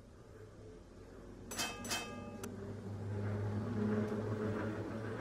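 Sound effect of an approaching tram: a low, steady rumble grows louder. About a second and a half in, the tram's bell rings three quick times.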